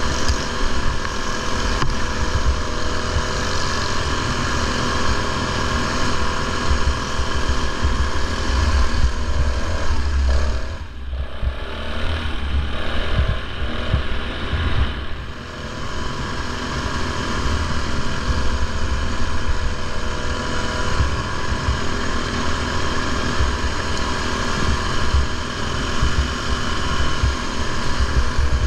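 Racing ride-on lawn mower's engine running hard at speed, easing off briefly twice near the middle as it slows for corners.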